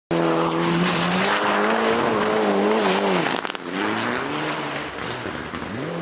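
Rally car engine running at high revs as the car slides through a gravel corner, with a hiss of gravel and dust thrown off the tyres. The revs dip about three seconds in and climb again, and the sound is somewhat quieter after that as the car moves off.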